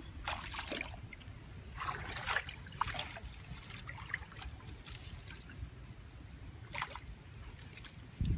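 Water trickling steadily, with a few brief rustles of leafy branches being handled and pushed into a hole.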